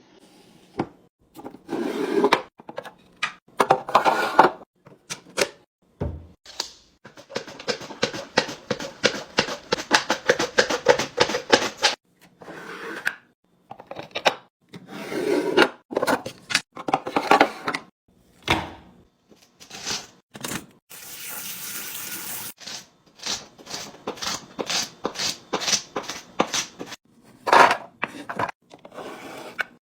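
Fridge restocking sounds: plastic containers, bottles and packaging being handled, clicked open and set down, in a string of short knocks and rustles. There is a long run of rapid clicking or rattling and, later, a short steady hiss like liquid being poured.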